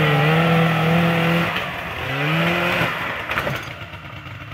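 Ski-Doo snowmobile's Rotax two-cylinder two-stroke engine revving, held high for a second and a half, dropping and revving up again, then falling back to a low idle about three and a half seconds in. It is running unhappily just after a cold start on ether.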